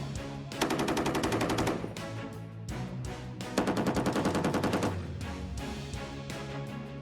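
Two bursts of M240G 7.62 mm medium machine gun fire, each just over a second long and about three seconds apart, at roughly ten shots a second, over background music.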